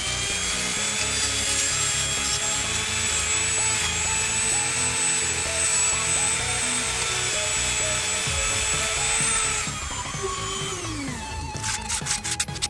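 Handheld rotary tool with a small grinding bit running at a steady high whine as it smooths the drilled holes in a wooden lamp shade, winding down about ten seconds in. Near the end, sandpaper is rubbed over the wood by hand in quick scratchy strokes.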